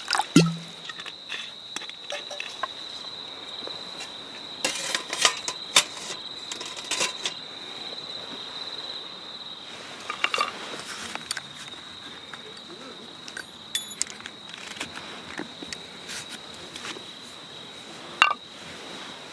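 Scattered clicks, clinks and knocks of cookware and utensils being handled, a few at a time with pauses between, over a steady high, thin whine.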